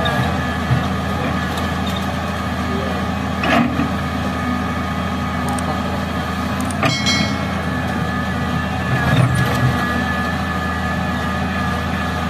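Heavy diesel machinery running steadily, an excavator at work loading a dump truck, with a few sharp metallic knocks; the loudest, about seven seconds in, rings briefly.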